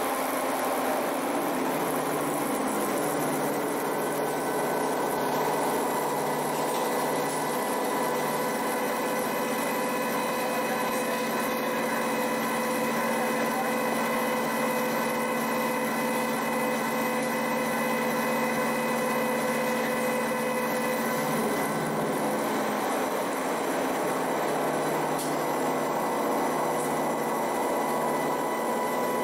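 Horizontal boring mill's spindle driving a disc-shaped milling cutter through a metal block under coolant spray: a steady machining whine with several held tones over a hiss.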